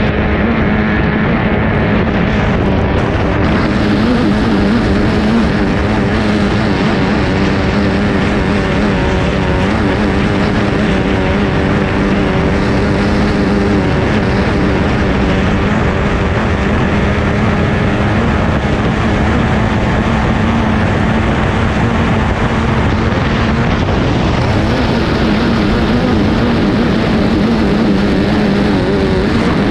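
Formula 2500 racing hydroplane's engine running steadily at race speed, heard from on board, a loud unbroken drone over wind and water noise.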